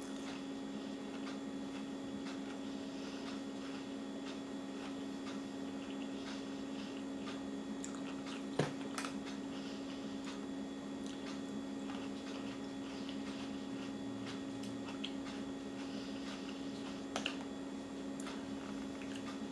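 Quiet chewing of juicy fruit: faint wet squishing and small mouth clicks, with one sharper click about eight and a half seconds in, over a steady low hum.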